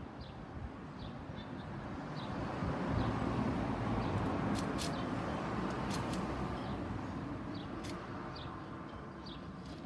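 Street traffic noise that rises and then eases off around the middle, with short bird calls throughout and a few sharp clicks.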